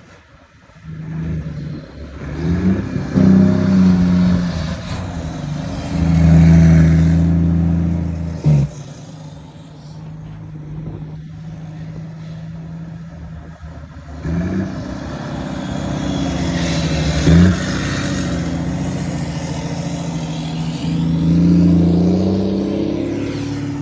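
Volvo FH trucks with aftermarket exhausts driving past one after another, their six-cylinder diesels rumbling deep and loud in two passes. Each pass has a brief sharp jump in pitch, about eight and seventeen seconds in.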